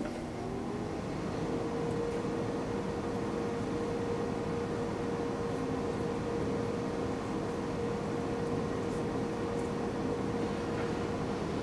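A motor-driven machine spinning up, its hum rising in pitch over about a second and a half, then running steadily with an even whir.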